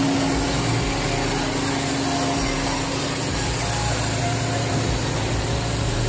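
Engine running steadily, a continuous low drone with a hum.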